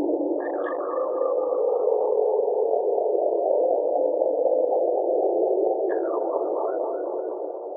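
Synthesized UFO sound effect: a dense, warbling electronic hum, with a burst of quick falling chirps about half a second in and again about six seconds in, beginning to fade near the end.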